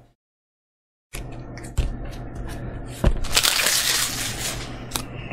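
Foil booster-pack wrapper crinkling and tearing open, with sharp crackles and snaps, after about a second of dead silence at the start. The crinkling is densest near the end.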